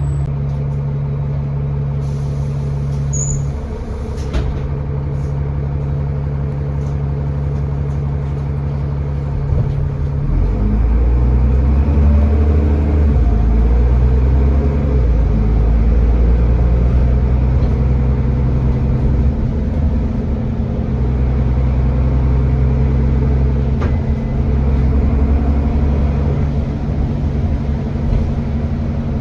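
Bus diesel engine heard from on board, running steadily at first, then pulling harder and louder from about ten seconds in as the bus accelerates under load.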